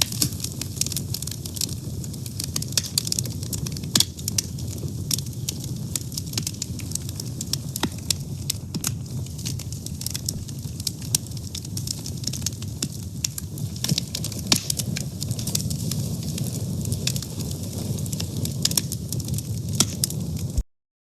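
Fire burning, crackling and popping constantly over a steady low rumble. The sound cuts out completely for a moment near the end.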